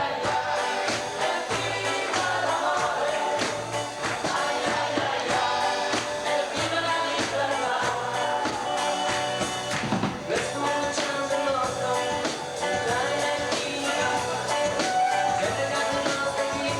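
Rock-and-roll band music with singing and a steady beat.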